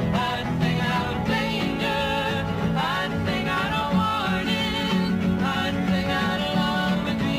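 Background music: a country-style song with guitar.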